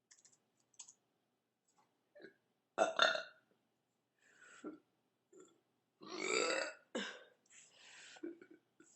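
A woman belching repeatedly: a loud short burp about three seconds in, a smaller one, then a longer loud burp about six seconds in followed quickly by a short sharp one and a lower, quieter one. Faint clicks come just before the burps begin.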